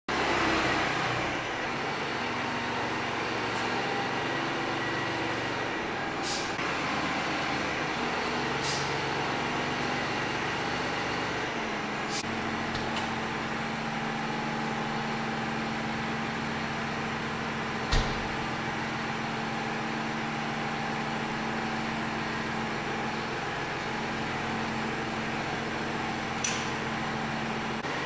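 Farm tractor's diesel engine running at low revs, its note shifting about twelve seconds in. A few light metallic clicks, and one sharp knock about eighteen seconds in.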